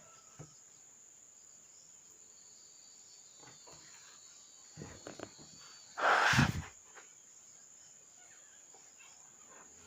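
Slime being handled and pressed, with a few faint clicks and then one short loud squishy burst about six seconds in. A faint steady high hiss runs behind it.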